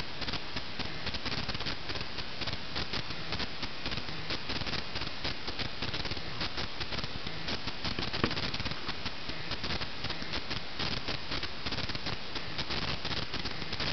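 Steady, dense crackling rustle of wood-shavings bedding as a hamster moves through it, with one sharper click about eight seconds in.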